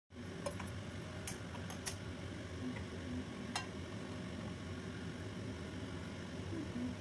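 Steady low background hum with a few light clicks and taps of kitchenware being handled, mostly in the first four seconds.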